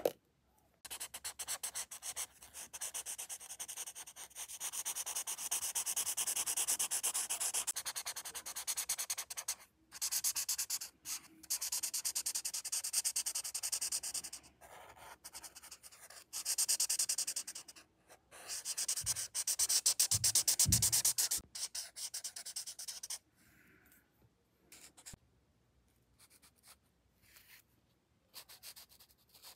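Felt-tip marker rubbing back and forth across colouring-book paper in fast, scratchy strokes, in runs of a few seconds broken by short pauses. The strokes stop a little over twenty seconds in, leaving only a few faint taps.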